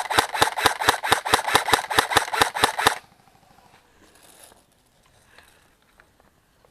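Airsoft gun firing a fast, even string of shots, about seven a second, that stops about three seconds in. Faint rustling and small clicks follow.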